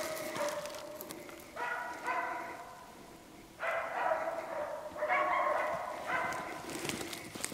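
West Siberian Laika hunting dog barking in several bouts, with a short lull about three seconds in: the bay of a laika working a moose.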